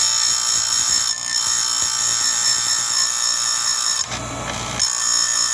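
Chainsaw chain grinder with a CBN wheel grinding the cutters of a saw chain: a steady high-pitched grinding whine, breaking off for under a second about four seconds in as the wheel comes off a tooth, then resuming.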